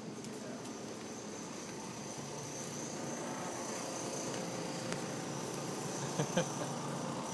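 Steady store background noise with a thin, steady high-pitched whine, and two short knocks in quick succession about six seconds in.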